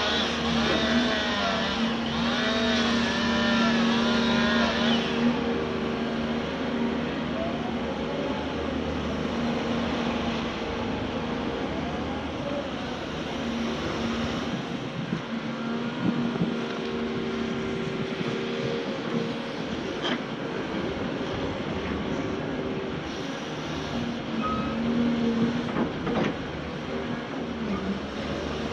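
Caterpillar hydraulic excavator working, its engine and hydraulics giving a steady hum, with a wavering high squeal for the first five seconds and a sharp knock about twenty seconds in.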